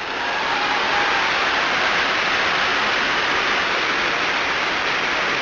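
Steady, even hiss of noise that swells in over the first half-second and then holds level.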